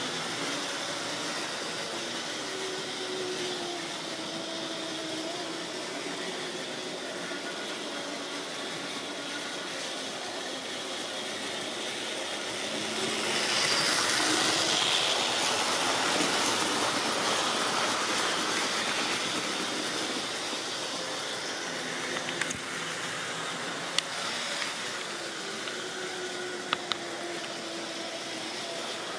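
Electric motor of an OO gauge model diesel locomotive whirring, with its train of tank wagons rolling on the track. It grows louder as the train runs close past, loudest about halfway through, then fades, with a few sharp clicks near the end.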